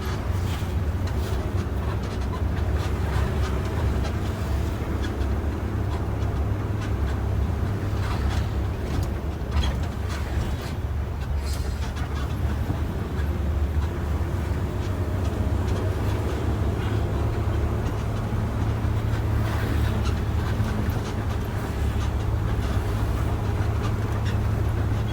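Intercity bus under way, heard from inside the cabin: a steady low drone of engine and road noise, with a few faint clicks and rattles.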